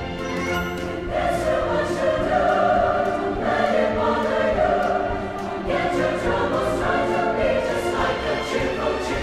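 Background music: a choir singing sustained lines over instrumental accompaniment.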